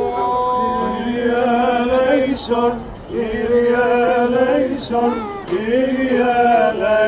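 Male voices singing Byzantine chant in long held, gently wavering notes, with short breaks between phrases.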